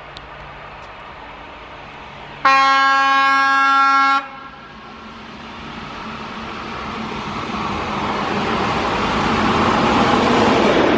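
Class 460 electric multiple unit sounding its horn once, a single steady blast of under two seconds, then the rising rumble of the train drawing near and running past close by.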